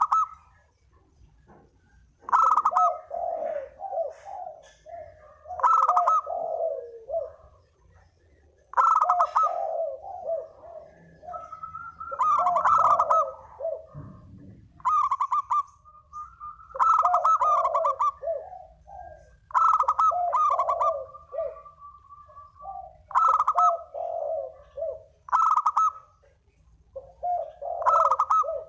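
Spotted dove (derkuku) cooing over and over, one call phrase about every three seconds, each opening with a louder, higher note and running into a string of lower coos. This is a lure call used to draw in other doves.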